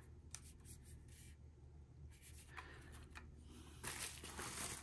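Faint rustling and light clicks of unboxed accessories and their packaging being handled, with a louder rustle near the end.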